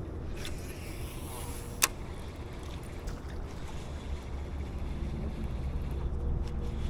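Steady low rumble of wind and river water around a kayak, with one sharp click about two seconds in.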